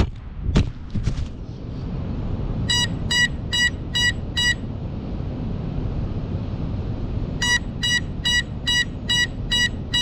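FPV quadcopter striking the ground with a few quick knocks, then lying in the grass and sounding its beeper. The beeper gives short, evenly spaced beeps, about two and a half a second, in two runs with a pause of about three seconds between them, over a steady low outdoor rumble.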